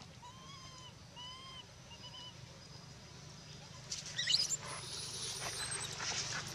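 Infant long-tailed macaque giving two or three short arched coo calls, then from about four seconds in shrill, very high-pitched screams as its mother runs off: a distress call at being left behind.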